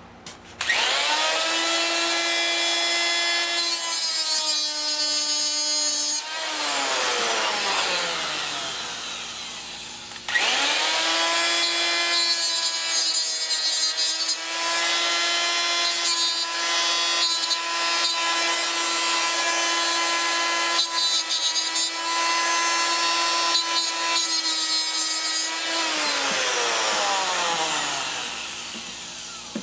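Straight die grinder with a cutoff wheel, spinning up to a steady high whine as it cuts. It runs about six seconds and spins down with a falling whine, then starts again about halfway through, runs steadily and spins down near the end.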